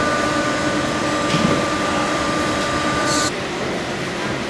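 Steady hum of factory machinery with a high whine over it, cutting off suddenly about three seconds in to a quieter steady workshop background.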